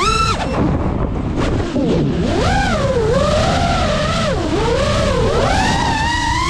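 A 5-inch FPV quadcopter's brushless motors whining, the pitch swooping up and down with throttle. A dense low rumble of wind runs under it. The whine climbs sharply just after the start, drops, then rises steadily toward the end.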